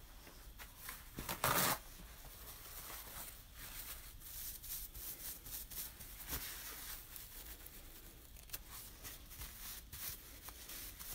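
A brief tearing rustle about a second and a half in, then faint rustling and light clicks, as excess acrylic paint is wiped off a paintbrush.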